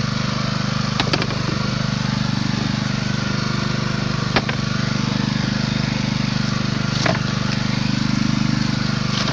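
Steady motor hum, like a small engine running at an even speed, with a few sharp clicks: about a second in, near the middle and about seven seconds in.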